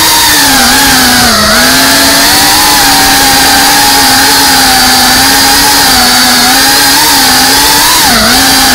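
FPV racing quadcopter's electric motors and propellers whining, close and loud from the onboard camera. The pitch wavers with the throttle and dips sharply twice, about a second and a half in and near the end.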